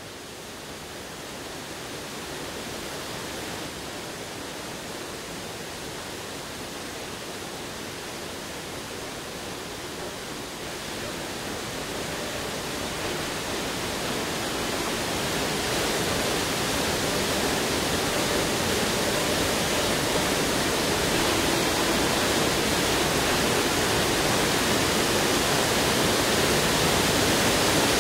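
Waterfall pouring into a plunge pool: a steady rushing splash that grows gradually louder.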